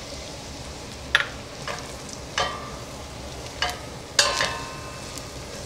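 A silicone spatula stirring flour into butter and onions in a stainless steel saucepan to start a roux: a steady low sizzle with about five sharp scrapes and knocks of the spatula against the pot, the louder ones leaving the pot ringing briefly.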